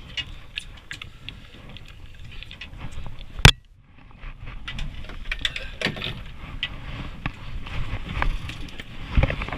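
Handling noises on a boat deck: scattered clicks and knocks over a low rumble, with one sharp, loud knock about three and a half seconds in, followed by a moment of near silence, and a few heavier thumps near the end.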